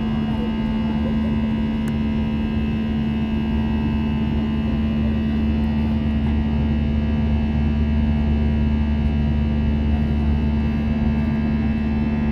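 Steady drone of an airliner's engines heard inside the passenger cabin: an even low hum with a strong steady tone and an airy rush above it.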